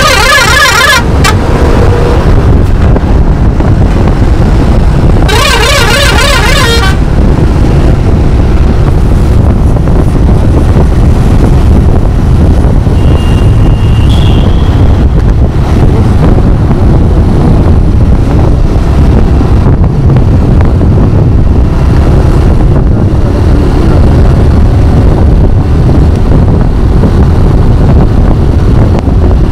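Steady wind and road noise from a motorcycle riding at highway speed. A vehicle horn sounds twice with a warbling tone: one blast ends about a second in, and another lasts about a second and a half around six seconds in.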